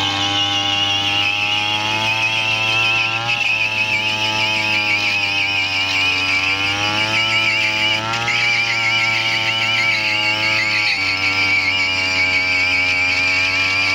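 Small two-stroke moped engine held at high revs during a burnout, its rear tyre spinning on a board, with a wavering high squeal over it. The revs dip briefly and climb back three times.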